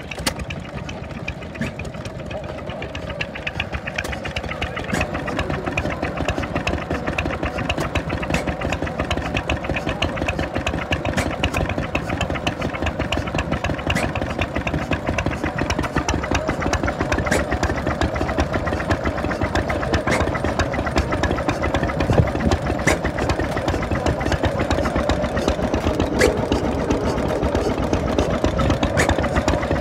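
Vintage stationary engine running steadily, a little louder after the first few seconds, with a few sharper clicks standing out.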